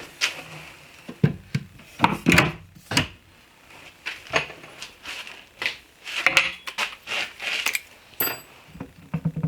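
Irregular wooden knocks, clicks and clatter as cabinet parts and hand tools are handled, with the loudest knocks about two and three seconds in.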